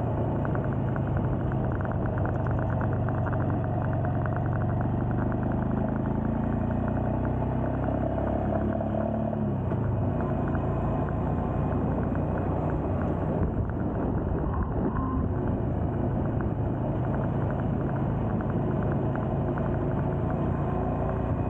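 Royal Enfield Scram 411's single-cylinder engine running steadily while the motorcycle is ridden along the road. The engine note changes about ten seconds in.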